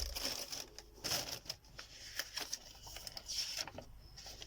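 Paper and packaging rustling and crinkling in irregular handling noises as a folded letter is taken out of a parcel and opened.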